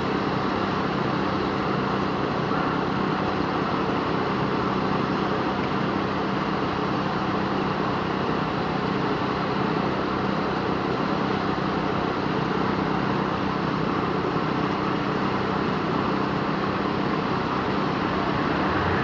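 An engine running steadily at constant speed, a continuous drone with a fixed low hum and no change in pitch, at a concrete pour.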